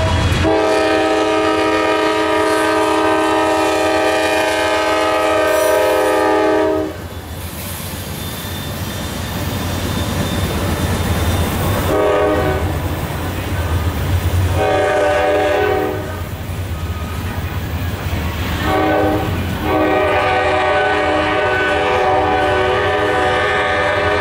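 Multi-chime air horn of a freight train led by two GE Dash 9-40CW locomotives. It sounds one long blast, then a few shorter ones, and a final long one near the end, over the low rumble and clickety-clack of freight cars rolling past.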